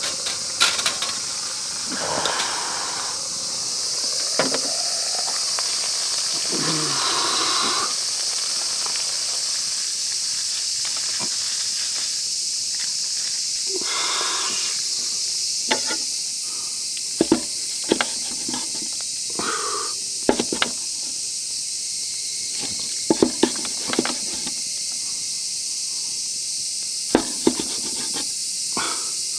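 A steady high hiss throughout, with scattered sharp clicks and knocks of utensils on a cast-iron grill press and a wooden cutting board, several coming in quick pairs in the second half.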